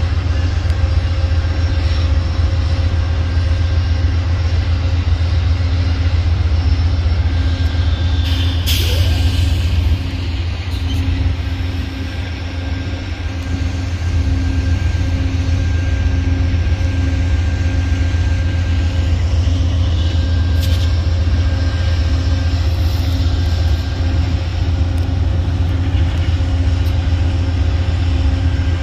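Amtrak GE P42DC diesel-electric locomotives running steadily while the train stands at the platform: a deep, even engine hum with a steady tone above it. A brief hiss comes about nine seconds in.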